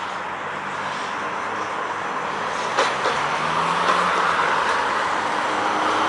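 A tram rolling along street track, mixed with passing car traffic on the road. There is one sharp click about three seconds in, and the traffic noise swells near the end as a car goes by.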